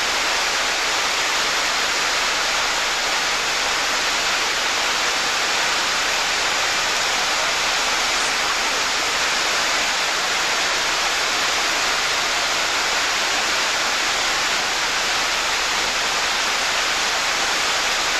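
Water pouring over a low weir into a churning pool: a steady, unbroken rush of white water.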